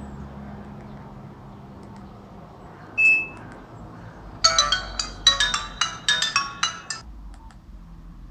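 Nokia 105 (2013) mobile phone's built-in speaker playing one of its original ringtones: a single short high beep, then about a second later a quick melody of short bright notes lasting about two and a half seconds, over a low steady hum.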